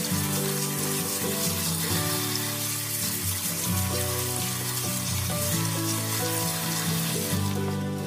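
Tap water running and splashing over webfoot octopus being rubbed clean in gloved hands under the faucet, a steady hiss that thins out near the end. Background music plays throughout.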